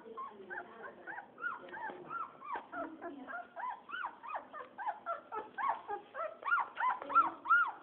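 Young puppies whimpering and squealing: short, high rise-and-fall cries, several a second, getting louder near the end.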